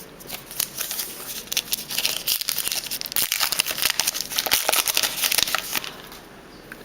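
Trading card pack wrapper being torn open and crinkled in the hands, a dense crackle lasting about five seconds that stops near the end.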